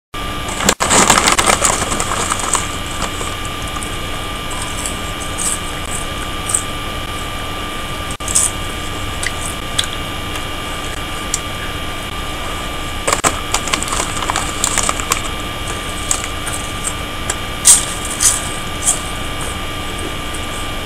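Steady hiss with a constant electrical hum, broken by scattered crackles and clicks, with denser bursts of crackling about a second in, in the second half and near the end.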